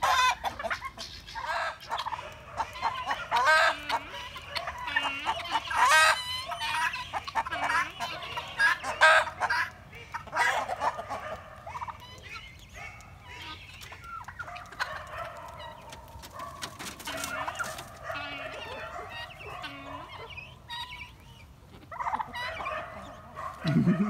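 A mixed flock of chickens and turkeys calling, busy with short clucks and squawks in the first half and quieter, longer drawn-out calls after; the birds are alarmed by a hawk close by.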